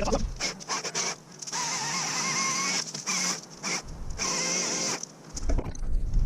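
Battery-powered chainsaw being run in short bursts while bucking a felled maple, the motor whine and chain noise stopping and starting several times as the trigger is released and pulled.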